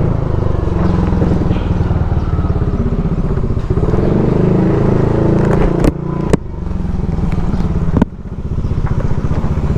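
Small motor scooter's single-cylinder engine running steadily as it rides along slowly. Around the middle there are a few sharp clicks, each followed by a brief dip in the engine sound.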